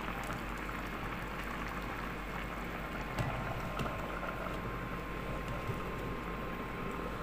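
Chicken curry simmering in a pan, a steady bubbling hiss. A glass pot lid knocks against the pan a couple of times a little past the middle as it is set on.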